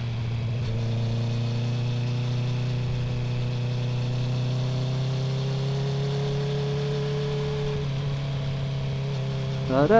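Honda CB650R's inline-four engine with an Akrapovic titanium full exhaust running steadily at low speed in traffic, its note rising a little over several seconds.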